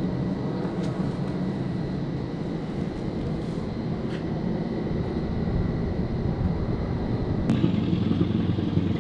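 Steady low engine rumble of a boat coming into the harbour, growing a little louder toward the end.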